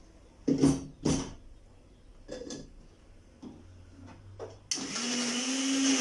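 A few knocks and clunks as the blender jar loaded with ice and mango margarita mix is handled and set onto its base, then about three-quarters of the way through the countertop blender switches on suddenly and runs steadily, blending the ice.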